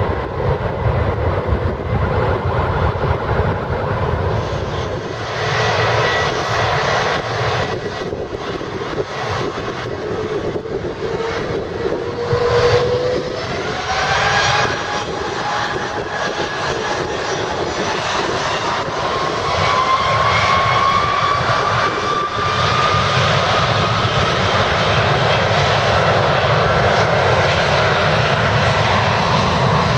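Airliner jet engines running without a break: a Boeing 767 taking off, then a Cathay Pacific Airbus A330-300's Rolls-Royce Trent 700 engines close by as it taxis and lines up. Through the middle an engine whine climbs slowly in pitch, and the noise grows a little louder in the last third.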